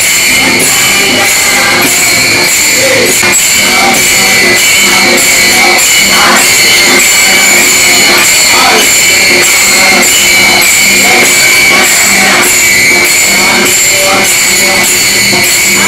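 Many pairs of brass taal hand cymbals struck together in a steady rhythm, keeping up a continuous metallic ringing, with group chanting of a devotional bhajan underneath.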